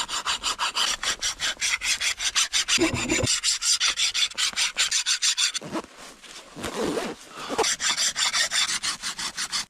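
Hand file rasping back and forth on a leaf-spring steel knife blank in quick, even strokes, about five a second, easing off briefly a little past halfway before picking up again.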